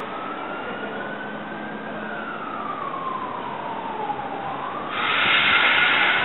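SEPTA Silverliner II electric multiple-unit train approaching, with a single tone slowly rising, falling and rising again. About five seconds in, a loud hissing blast starts abruptly and lasts about a second and a half.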